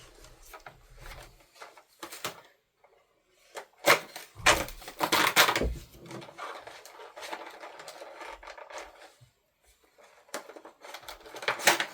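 Toy packaging being handled and opened: scattered clicks and taps, with a louder spell of rustling and crinkling about four to six seconds in, then softer scraping.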